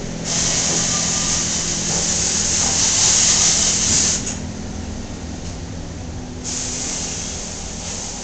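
Water running hard from a faucet into a stainless steel sink, heard as a loud hiss. It stops about four seconds in and starts again about two seconds later, over a steady low hum.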